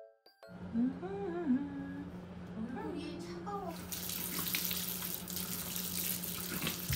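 Bathroom sink tap turned on about halfway through, water running steadily into the basin over a steady low hum. Earlier a voice hums a few short notes.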